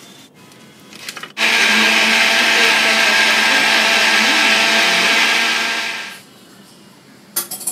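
Electric mixer grinder running steadily for about four and a half seconds, grinding grated coconut, coriander leaves and salt into chutney, then winding down. There are short clatters just before it starts and again near the end.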